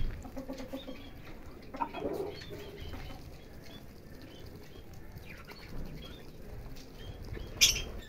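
Muscovy duck feeding fast off a concrete floor, its bill dabbling at scattered grain with a soft rapid rustle, as busy as a vacuum cleaner. Small birds chirp faintly, and there is a short sharp sound near the end.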